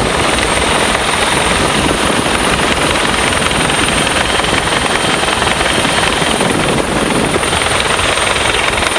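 Agusta-Bell AB 412 helicopter in flight, its rotor and turbine engines running loud and steady, heard from on board the airframe.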